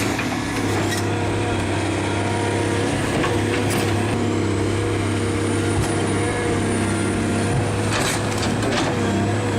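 Heavy diesel engine of a big machine running steadily, with a few short knocks or cracks over it, about a second in, near four seconds and again around eight seconds.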